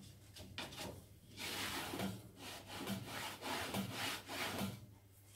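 A long straightedge rubbed back and forth across a wooden board: a run of short rasping scrapes, about two a second, starting about a second and a half in.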